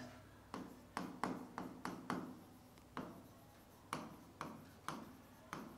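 Faint pen strokes on the surface of an interactive touchscreen board as words are written by hand: a dozen or so short taps and brief scrapes, irregularly spaced, one or two a second.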